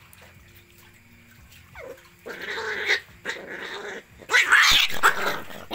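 A puppy growling while it eats from a food basin, in two rough bouts: one about two seconds in and a louder one near the end.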